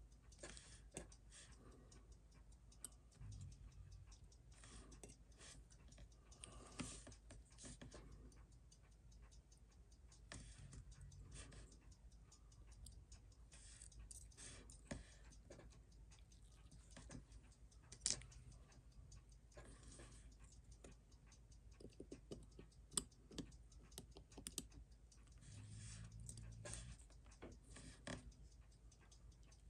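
Faint, scattered clicks and taps of steel tweezers on the small metal parts of a Seiko 6309 automatic movement as its calendar-side parts are lifted off, with a sharper click about halfway through and a few more near the end.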